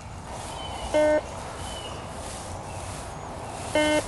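Garrett GTI 2500 metal detector giving two short electronic beeps as its coil is swept over the ground, one about a second in and one near the end. These are brief, unsteady target tones that the detectorist takes for trash, more than likely.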